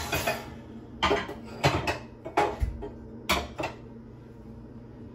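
Metal cooking pots and pans clanking and knocking together as a pot is fetched: a string of sharp clatters over the first four seconds, then quiet.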